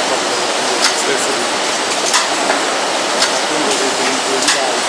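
Heat-shrink bundling machine for ice-cream tubs running, a steady loud mechanical hiss and hum with a few sharp clicks at irregular intervals.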